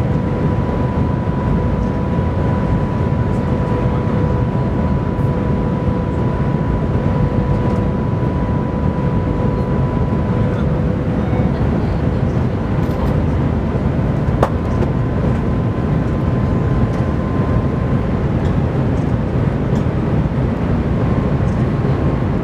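Cabin noise of the Shanghai Transrapid maglev train running at just over 300 km/h and still gaining speed: a loud, steady rumbling rush with a high whine that fades out about halfway. A single sharp click about two-thirds in.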